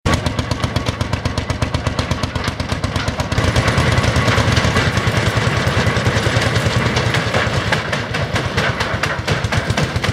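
Old engine driving belt-driven farm machinery, running with a fast, even thumping beat; it gets louder about three seconds in.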